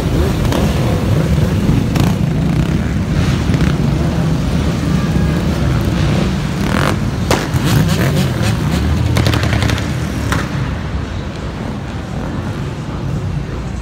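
Engines of a pack of motorcycles and ATVs rumbling and revving as they ride past, with repeated sharp cracks over the engine noise; the sound eases off after about ten seconds as the pack moves on.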